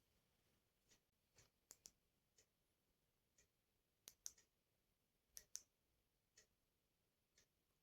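Near silence in a small room, broken by faint, scattered clicks and light taps, some coming in quick pairs.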